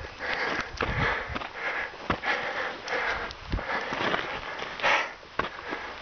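A person breathing hard and fast, out of breath from climbing a steep trail: loud, rhythmic rushing breaths in and out, about three every two seconds.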